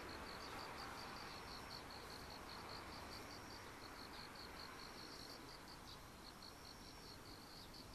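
Faint insects chirping in a rapid, evenly spaced pulse, with a fainter, higher trill coming in now and then.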